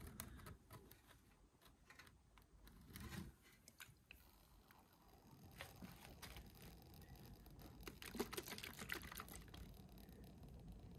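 Faint, scattered clicks and small knocks of a hand-held fluid pump being worked, pumping oil into a small bulldozer's transmission to fill it.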